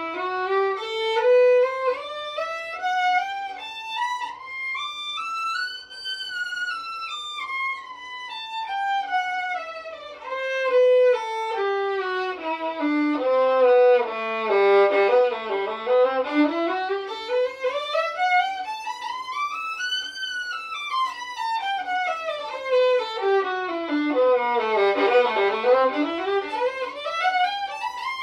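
Solo violin playing scales that span about three octaves, climbing note by note from the lowest string to the top and back down, then up again.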